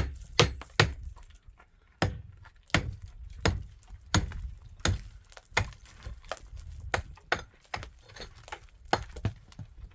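Repeated sharp hammer blows on a building job, mostly about one every three quarters of a second, some quicker and some softer.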